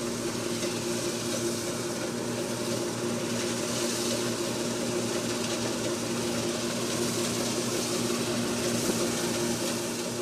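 New Holland TC5.80 combine harvester running steadily while cutting wheat: an even engine and threshing drone with two steady hum tones.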